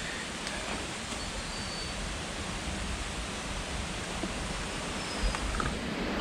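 Steady rush of a flowing stream, an even noise with no letup.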